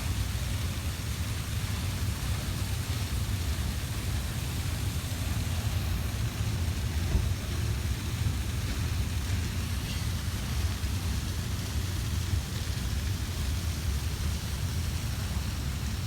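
Slow-moving freight train of intermodal cars rolling past at a crawl: a steady low rumble with a constant hiss.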